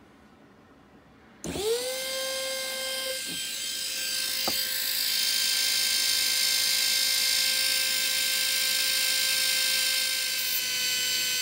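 Handheld electric rotary tool with a small cutting disc switching on about a second and a half in, spinning up quickly to a steady high whine. It grows louder with a hiss as the disc is put to a rabbit's overgrown bottom incisors to trim them back.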